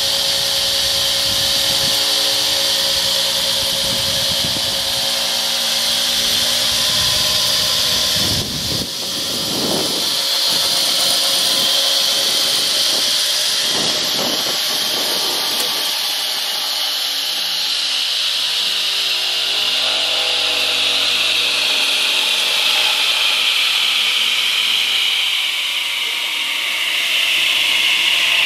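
DeWalt Model 534 radial arm saw running free with no cut, its motor and spinning blade giving a steady high whine that slowly drops a little in pitch.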